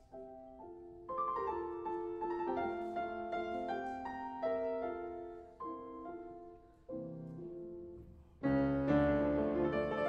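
Background piano music with a slow melody of single notes over chords; about eight and a half seconds in it swells to a louder, fuller passage.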